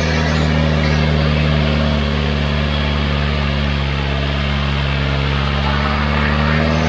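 Powertrac Euro 60 tractor's diesel engine running steadily under heavy load, pulling a double disc harrow through the soil.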